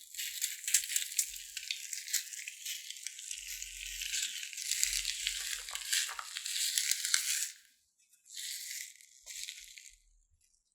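Slime being squished and worked by hand: a dense, wet crackle of tiny clicks and pops. It stops about three-quarters of the way in, then comes back in two short bursts.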